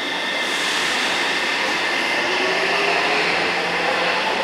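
Electric metro or commuter train running at the platform, a continuous rumble and hiss with a steady high whine. About halfway through, a lower whine comes in and rises steadily in pitch.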